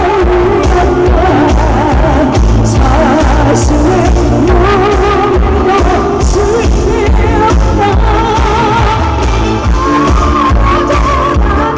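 A woman singing a Korean song live into a microphone over an amplified backing track, her voice wavering with vibrato above a steady bass and drum beat.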